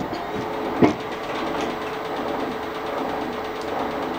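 Milling machine running with a steady hum at one pitch, with a single sharp click about a second in.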